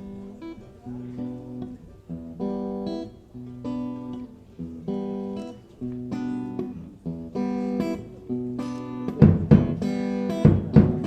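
Acoustic guitar playing a song's intro live: a slow, repeating chord pattern, one chord about every second and a quarter. About nine seconds in, heavy percussive thumps join in.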